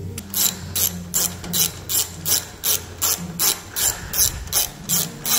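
Hand ratchet clicking in short, even strokes, about three a second, tightening the nut of a band clamp on a stainless exhaust H-pipe.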